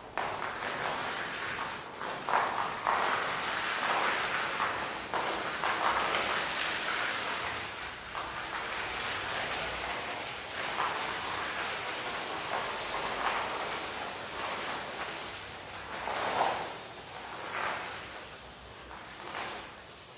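Wet rug being washed by hand: a continuous rushing, scrubbing noise with irregular louder strokes.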